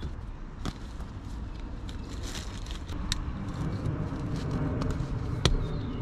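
Handling noise from the straps of a faux-leather seat cover being fished through a truck's rear seat and pulled tight: rubbing and rustling, with two sharp clicks, one near the start and one near the end, over a steady low rumble.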